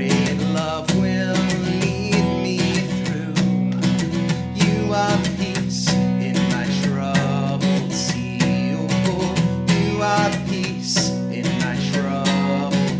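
Music: a worship song carried by strummed acoustic guitar with a steady beat.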